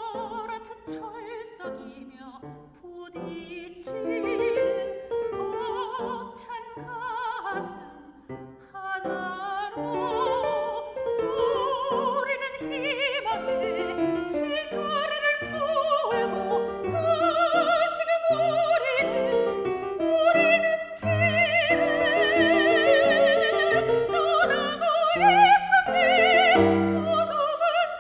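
Soprano singing a Korean art song in a classical style with wide vibrato, over piano accompaniment. The voice grows louder and fuller through the second half, building to a climax near the end.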